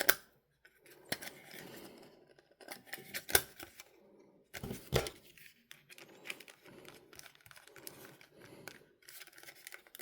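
Light handling of a portable minidisc player being reassembled: scattered sharp clicks and small rubbing sounds of plastic and metal parts, with the louder clicks about three and five seconds in.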